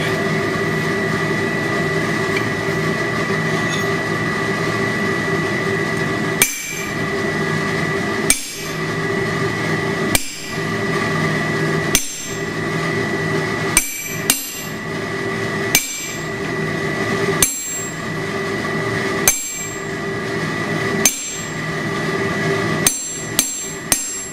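Hand hammer striking a hot-cut chisel through a red-hot steel bar on a cutting plate atop the anvil, splitting the bar's end to form the horns. The blows start about six seconds in and fall roughly one every two seconds, with three quicker blows near the end. A steady humming drone runs underneath.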